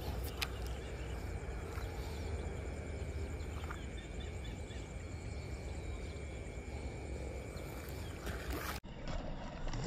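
Outdoor ambience: a low rumble of wind on the microphone under a thin, steady high-pitched drone from insects or other small creatures, with the background changing abruptly about a second before the end.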